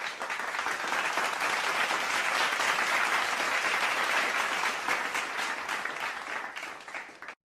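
Crowd applauding and clapping, starting abruptly, building and then fading out near the end.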